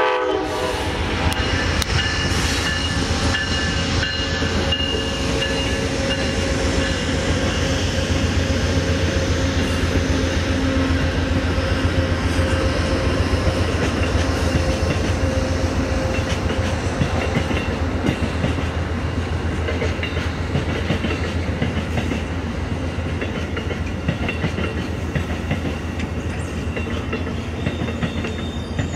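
Amtrak passenger train passing: a steady diesel drone from its GE P42DC locomotives, then the passenger coaches rolling by, wheels clicking over rail joints. The tail of a horn blast cuts off right at the start.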